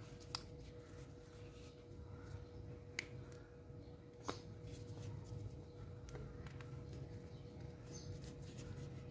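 Faint handling clicks and taps of a Makita angle grinder's metal end housing and plastic motor housing being fitted together, with three or four sharp clicks, over a low steady hum.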